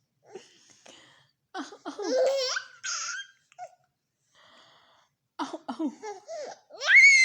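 A baby laughing in repeated bursts: a loud laugh about two seconds in, a string of short laughs later, and a high squealing laugh near the end.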